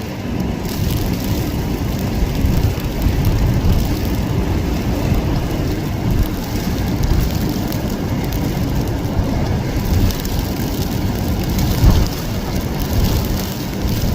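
Storm wind rushing and buffeting the microphone, with rain, a steady rough roar that swells in a stronger gust about twelve seconds in.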